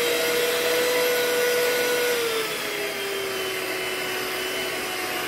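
Electric hand mixer running, its beaters churning a thick cream cheese and sugar mixture in a glass bowl; a steady motor whine that drops a little in pitch and loudness about two and a half seconds in.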